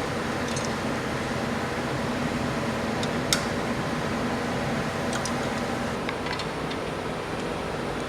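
Steady mechanical hum of workshop machinery, with one sharp metallic click about three seconds in and a few lighter clicks later, as of hand tools working on a stripped-down engine.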